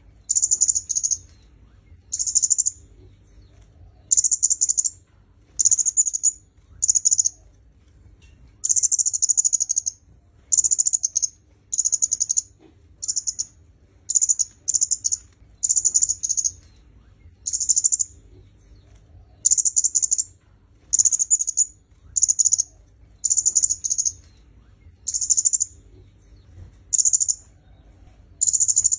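A kemade kepala merah, a flowerpecker, singing. It gives a short, high-pitched, rapidly pulsed chittering phrase, repeated about once a second.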